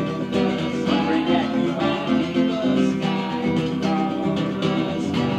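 Acoustic guitar strumming chords in a song.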